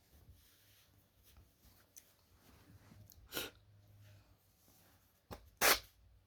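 Two wet sneezes about two seconds apart, the second louder.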